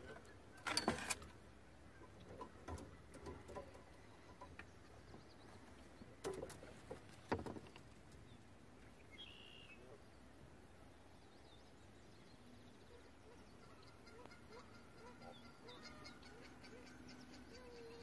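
Mute swan bathing, splashing the water in a few short bursts in the first eight seconds, the loudest about a second in. Later, faint bird chirps over a quiet background.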